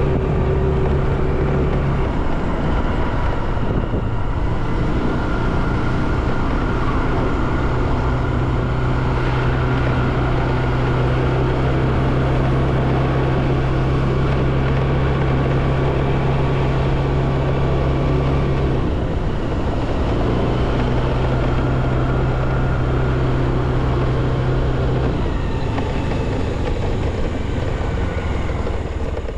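A vehicle engine running steadily while travelling along a road, with a low hum that shifts in pitch about 2 seconds in and again about 19 seconds in, and road or wind noise throughout. The engine hum gives way to plain noise in the last few seconds.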